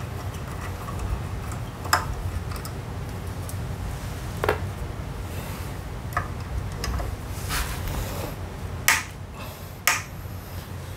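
A thin steel tool clicking and clinking against the front axle fitting of a Honda PCX125 scooter as it is worked at a stuck axle bolt, a handful of sharp metallic clicks spread irregularly over a steady low hum.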